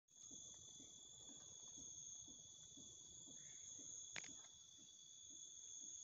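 Faint, steady chorus of night insects such as crickets, two high continuous trilling tones, with faint low pulses about twice a second underneath and a single sharp click about four seconds in.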